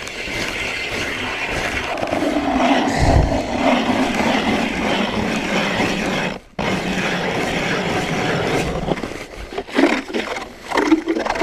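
Hand-cranked ice auger grinding through about 20 cm of pond ice, a steady scraping of the blades on ice. It stops briefly about two-thirds through and starts again, and a few knocks and scrapes come near the end as the auger is worked in the slushy hole.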